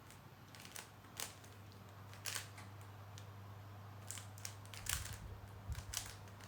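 A Rubik's cube being twisted by hand: irregular plastic clicks and snaps as the layers turn, several coming close together in the second half, over a steady low hum.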